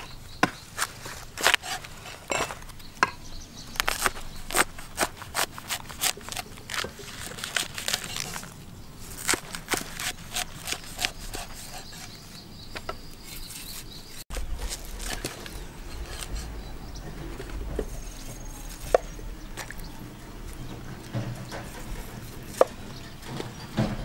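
Large knife cutting through a banana blossom and knocking on a wooden chopping board: a quick run of sharp cuts for the first dozen seconds, then only a few scattered knocks. A low rumble comes in about 14 seconds in.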